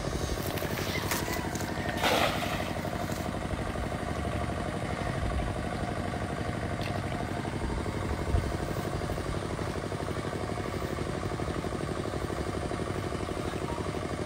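A small engine drones steadily. About two seconds in, a thrown cast net splashes into the pond water.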